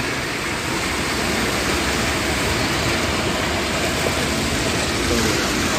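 Steady hiss of traffic on a rain-soaked street, with car tyres running through standing water.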